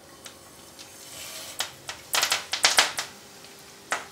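Mustard, cumin and fenugreek seeds and curry leaves spluttering in hot sesame oil in a frying pan. A faint sizzle runs under sharp pops and crackles, which come in a dense cluster around the middle and again near the end.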